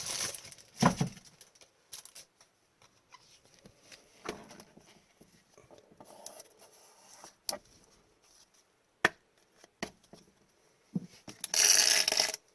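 Trading cards being handled: soft rubbing with a few sharp clicks and taps, then near the end a loud crinkle of about a second from a foil card-pack wrapper.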